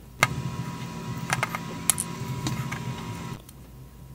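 Plastic tub being handled: a few light, sharp clicks over a steady low hum that starts just after the beginning and stops about three and a half seconds in.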